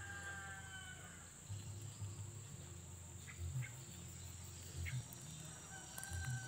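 Insects droning steadily in one high, even tone, with a soft low pulsing underneath about every second and a half.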